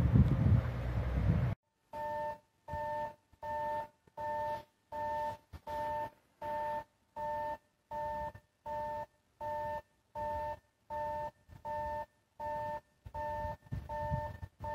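Wind rumbling on the microphone, cut off sharply about a second and a half in. Then a railway level-crossing alarm rings steadily, an electronic two-note ding repeating about one and a half times a second, the warning that a train is approaching.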